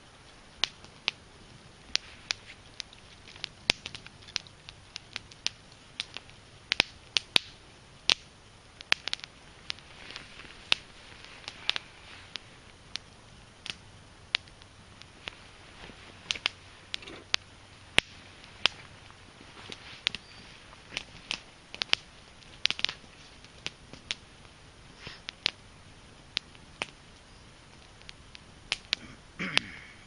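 A small fire of split Douglas fir kindling crackling, with sharp pops and snaps at irregular intervals, about two a second; the wood is still slightly wet and green.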